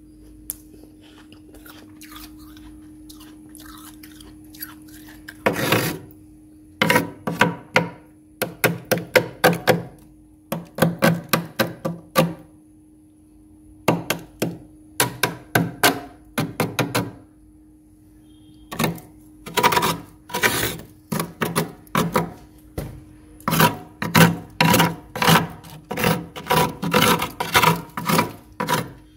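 Frost being scraped off the inside wall of a freezer with a small scraper: quick rasping strokes in runs of several, with short pauses between runs, starting about five seconds in. A steady low hum runs underneath.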